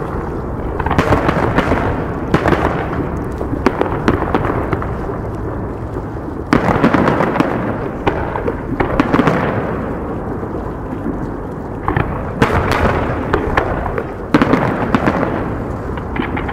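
Aerial fireworks shells bursting: a continuous rolling rumble of booms, with sharper bangs every few seconds, the strongest about six and a half and fourteen and a half seconds in.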